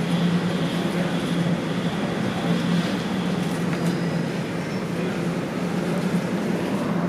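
Toronto Rocket subway train heard from inside the car as it runs slowly along the station platform to a stop: steady rumbling with a constant low hum.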